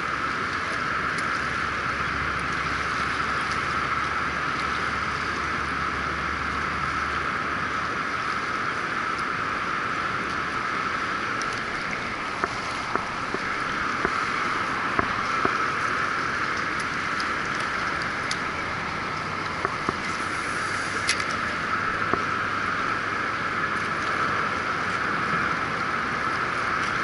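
Steady rush of fast river water churning below a dam, with a few faint clicks.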